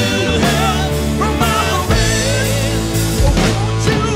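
Rock band playing live: electric guitars, acoustic guitar, keyboard and drums under a man singing the lead vocal, over a steady bass line with regular drum hits.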